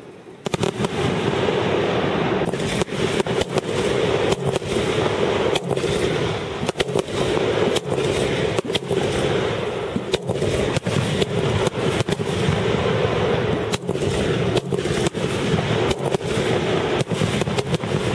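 Rapid barrage of aerial firework shells bursting, many sharp bangs a second over a continuous din. It starts suddenly about half a second in.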